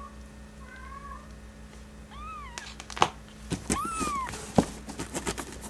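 Newborn kitten mewing: about four short, high cries, the one about four seconds in the longest and loudest, rising then falling in pitch. A few sharp clicks are heard between the cries.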